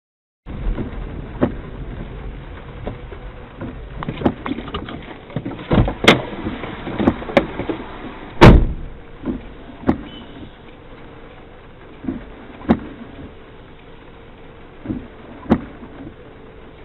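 Dashcam microphone inside a car stopped in traffic: a low, steady cabin rumble with scattered clicks and knocks, the loudest a heavy thud about eight and a half seconds in.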